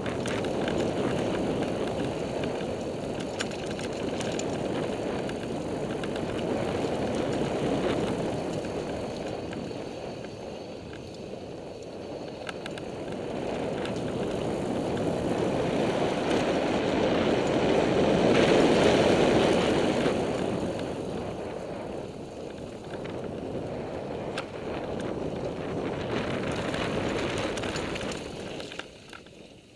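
Wind rushing over the camera and bicycle tyres rolling on a dirt trail during a fast mountain-bike ride, swelling and easing with speed, with scattered small rattles and clicks from the bike. It is loudest about two-thirds in and drops away near the end.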